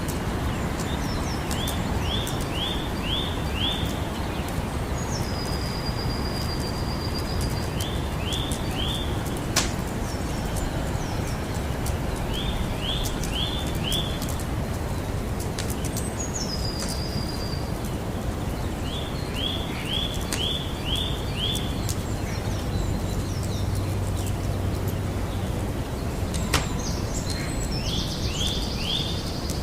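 Campfire crackling with a few sharp pops over a steady low rumble. A bird calls repeatedly in quick runs of four or five short chirps, with a longer whistled note twice.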